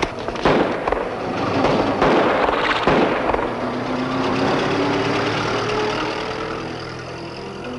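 Several loud explosive blasts with rushes of noise in the first three seconds. Then background music with held notes takes over from about three and a half seconds in.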